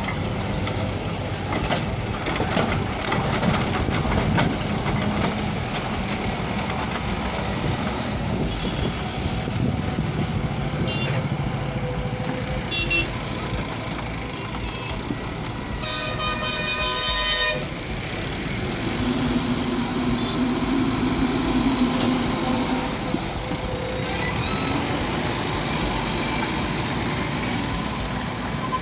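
A JCB backhoe loader's diesel engine running as it works, with scattered clicks and knocks. A vehicle horn sounds once for about a second and a half, roughly halfway through.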